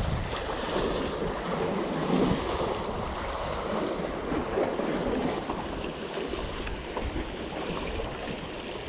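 Small sea waves washing and splashing against the boulders of a rock breakwater, in an uneven surging wash, with wind buffeting the microphone.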